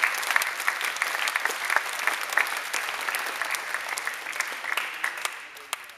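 Spectators applauding after a point in a table tennis match, a dense patter of clapping that thins out and fades near the end.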